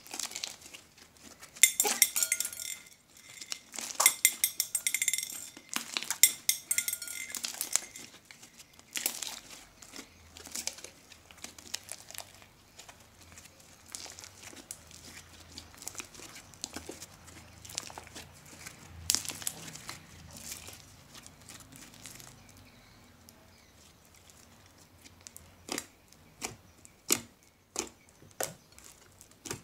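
Hands kneading and squeezing a thick metallic slime full of foam beads: wet crackling and popping as trapped air is squeezed out, dense and loud for the first several seconds, then softer. Near the end, a run of separate sharp pops about one a second as fingers poke into the slime.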